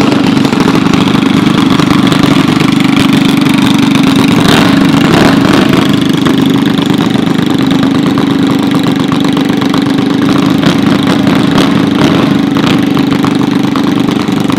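Junior dragster's single-cylinder engine idling steadily, a loud, even running note.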